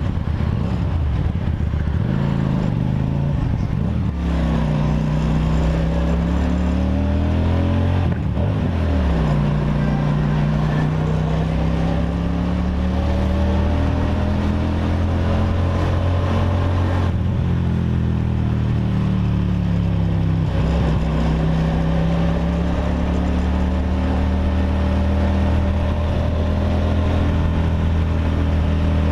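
Kasinski Comet GTR V-twin motorcycle with an aftermarket exhaust running under way. The engine note rises as it pulls through the gears, then drops back at each of about four gear changes.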